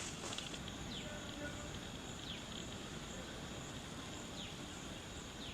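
Insects trilling steadily in a high, even chorus, with a few short falling chirps every second or two over a low background hum of outdoor noise.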